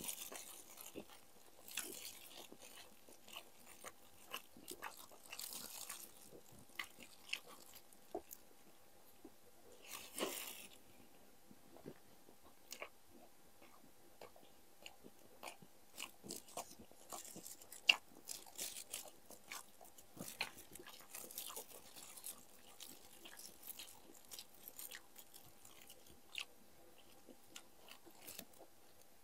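People eating: faint crunching and chewing with many small scattered clicks, crunchier bouts every few seconds.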